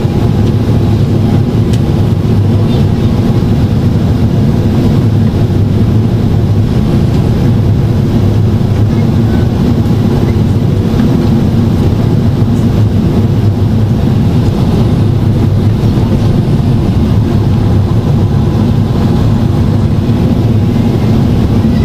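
Steady roar inside the cabin of a Boeing 767-400ER on descent: engine and airflow noise with a deep rumble, from its General Electric CF6 turbofans and the air over the fuselage and the extended flaps.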